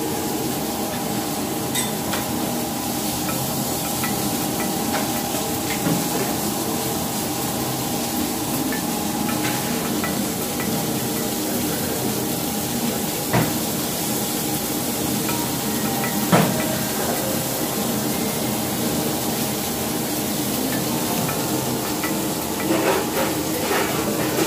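Open restaurant kitchen at work: a steady hiss of food cooking on a flat steel griddle and in boiling water over a steady hum, with two sharp metal clanks of cooking utensils a little past the middle.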